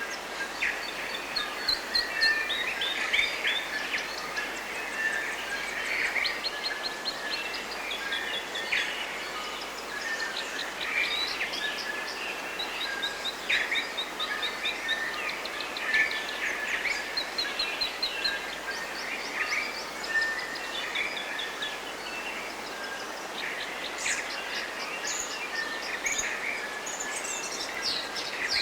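A dense chorus of forest birds singing and calling, with many overlapping chirps and quick trills, over a steady even hiss.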